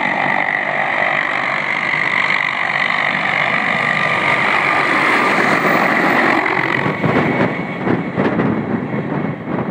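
MD 600N turbine helicopter's turboshaft engine and main rotor during a low, close flyby: a steady high-pitched turbine whine with rotor noise grows louder as it comes in, peaks about halfway through, then turns choppy as gusts of rotor wash buffet the microphone while it passes and moves away.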